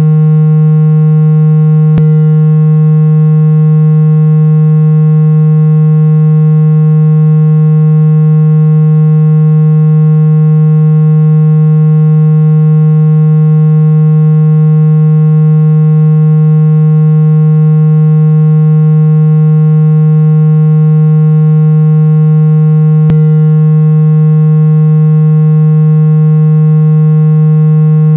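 Steady synthesized low hum tone with fixed overtones, held unchanged and loud, offered as an ear-treatment sound. Two faint clicks break it, about 2 seconds in and again near the end.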